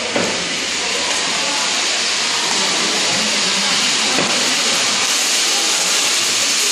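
A loud, steady hiss with no clear pitch.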